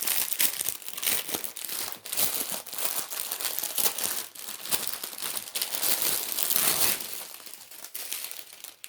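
Packaging crinkling and rustling with many small crackles as it is handled and opened to get at the diamond painting drills; it eases off near the end.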